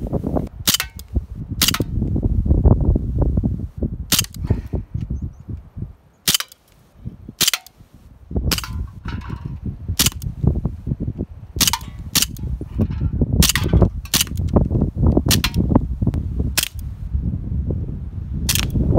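Colt M45 CQBP CO2 blowback BB pistol firing about a dozen single shots, irregularly spaced a second or two apart, each a sharp crack. Wind rumbles on the microphone underneath.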